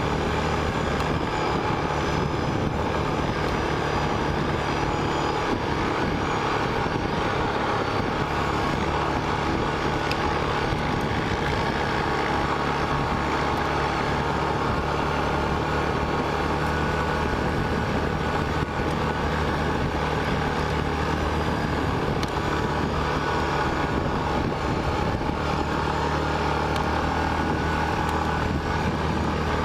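Single-cylinder 450 quad engine running steadily at cruising speed on a sandy wash, with a constant rush of wind over the microphone. There is no revving or let-off.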